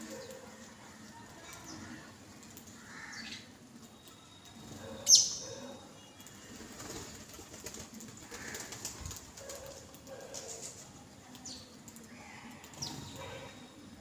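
Feral rock pigeons cooing softly off and on, while house sparrows chirp now and then. The loudest sound is one sharp, falling sparrow chirp about five seconds in.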